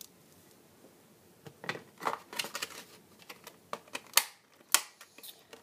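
Clicks and short rustles of hard plastic being handled, starting about a second and a half in, with two sharp louder clicks near the end.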